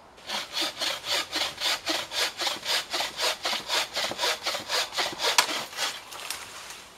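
Hand saw cutting through a wooden pole in quick, even rasping strokes, about three a second. There is a sharp crack just before the sawing stops near the end.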